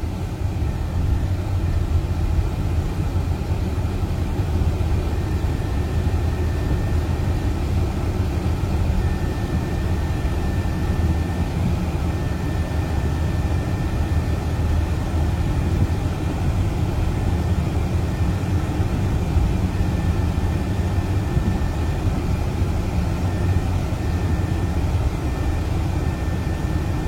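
Steady low rumble of a motor vehicle's engine and road noise, with a faint thin whine that comes and goes.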